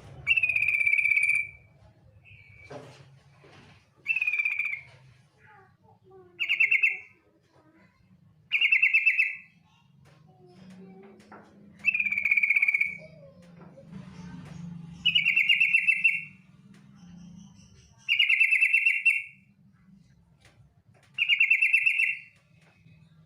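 Female sooty-headed bulbul (trucukan) giving its 'ngetir' call: a high, rapid rattling trill about a second long, repeated eight times at intervals of two to three seconds, over a faint low hum.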